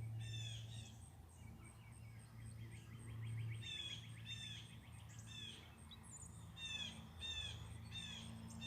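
Songbirds singing: a series of quick, repeated down-slurred notes, about two to three a second, with a rapid trill about two and a half seconds in.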